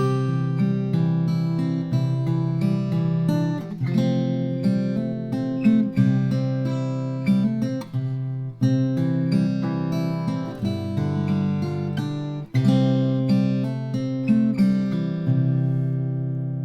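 Martin 0012-28 acoustic guitar played unaccompanied, a run of picked notes and chords, recorded dry with no EQ or compression. Near the end a final chord is left to ring and fade.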